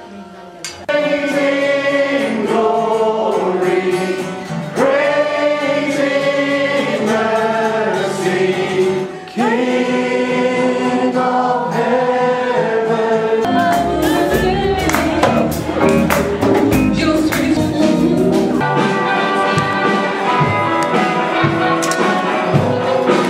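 A group of voices singing a worship song with instruments. A little over 13 seconds in the sound changes to a few seconds of heavy low rumble under a denser mix, then the singing carries on.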